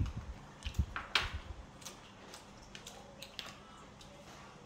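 Eating sounds at a table: chewing with a few low thumps, and a sharp clack a little over a second in as a ceramic rice bowl is set down on the wooden table, followed by scattered soft clicks of chopsticks and chewing.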